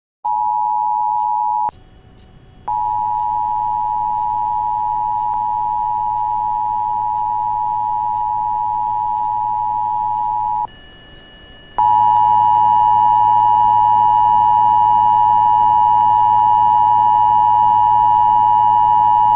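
Emergency Alert System attention signal: two steady tones sounded together just under 1 kHz. The signal plays briefly, stops, then sounds for about eight seconds, stops again for about a second, and sounds for another eight seconds. It heralds a Civil Danger Warning broadcast.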